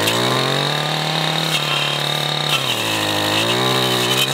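Two-stroke brush cutter with a 9-inch carbide-tipped chainsaw-tooth blade, run up to high revs while cutting saplings near the ground. The engine pitch dips briefly a little past halfway, then climbs again, over a steady high whine.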